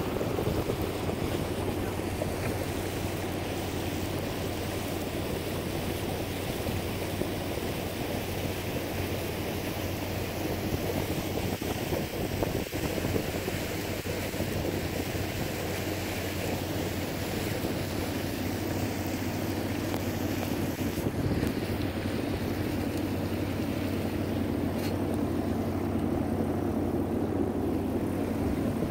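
A sailboat's Yanmar inboard diesel running at a steady cruising speed, a constant low drone, with water rushing along the hull and wind noise.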